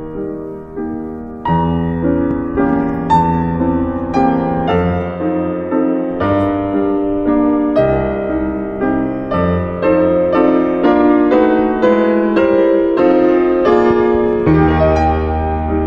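Piano music: a slow melody of single notes, one every half second or so, over low held bass notes, growing louder about a second and a half in.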